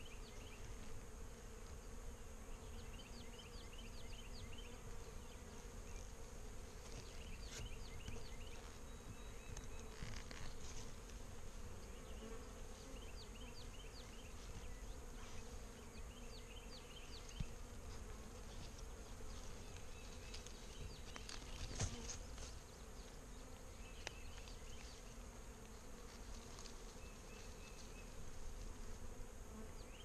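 A honey bee swarm buzzing steadily, heard close up at the clustered swarm on a peach limb. A single sharp click about two-thirds of the way through.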